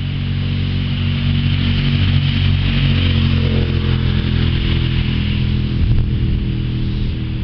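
Thunder rolling in a long, low rumble that swells over the first couple of seconds and carries on, with a fainter steady hiss above it.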